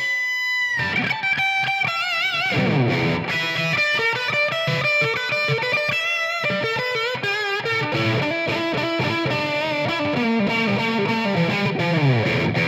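Squier Made in Japan electric guitar played amplified on its humbucker pickup: a lead phrase of single notes with bends and wavering vibrato, opening on a held note and ending on a descending run. The player hears it as slightly out of tune, since the guitar's new strings are still settling.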